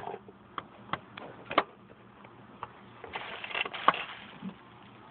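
Hands handling a taped, bubble-wrapped package: a few sharp clicks and light knocks, then a stretch of crinkly rustling with one sharp crack about four seconds in.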